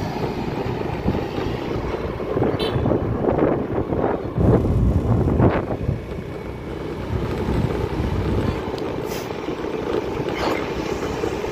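Wind buffeting the microphone over the steady noise of a moving vehicle on the road, with stronger gusts a few seconds in.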